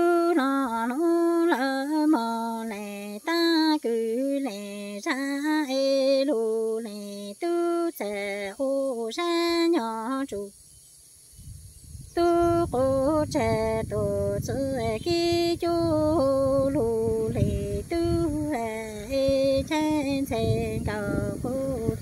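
A woman singing Hmong kwv txhiaj, unaccompanied sung poetry, in long held notes that waver and slide between pitches. She breaks off about ten seconds in and starts a new phrase a moment later, and a low rumble runs under the second phrase.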